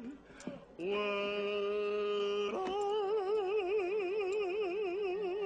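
A voice singing two long held notes, the first steady, the second about an octave higher with a wide, regular vibrato.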